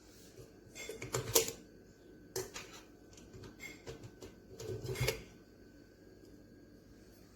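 Hard kitchen objects being handled: a series of sharp clicks and clattering knocks over about four seconds, the loudest about a second and a half in.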